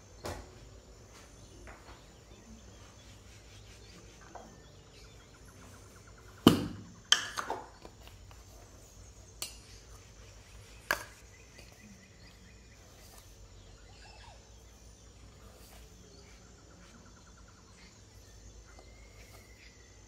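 Steel kitchen utensils and containers knocking and clattering as they are handled: a few sharp knocks, the loudest cluster about six to seven and a half seconds in, then two more single knocks.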